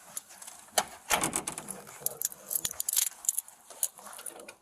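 Rapid metal jingling and clicking, with a louder rustle about a second in.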